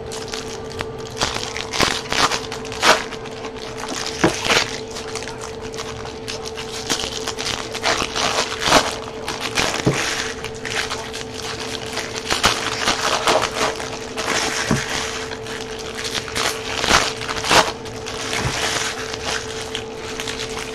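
Foil trading-card pack wrappers crinkling and tearing as packs are opened by hand, in an irregular run of crackles and rustles, over a steady faint hum.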